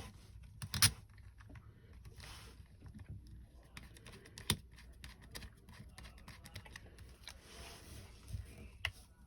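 Small clicks and taps of a screwdriver bit working a tiny Phillips screw and plastic belt clip on a handheld radio, with a sharp click about a second in and a few more scattered through.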